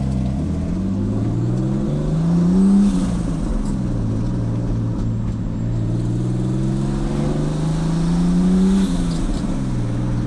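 Turbocharged BMW E46's engine pulling up through the revs twice: a short rise about two seconds in that drops off, then a longer, slower climb that falls away near the end. The owner says the engine is blown.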